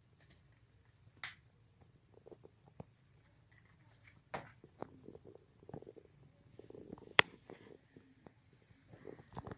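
Scattered soft knocks and clicks at irregular intervals, the sharpest one about seven seconds in.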